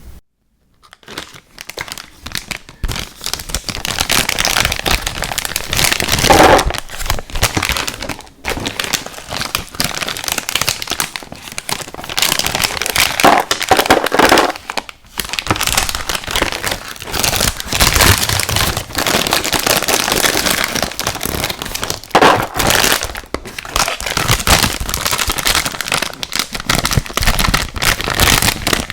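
Close-miked eating of sour gummy worm cereal: dense crackling and clicking chewing sounds, starting about a second in, with brief pauses about eight and fifteen seconds in.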